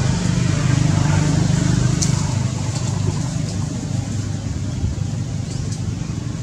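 A steady low engine hum, like a motor vehicle running nearby, with a few faint ticks.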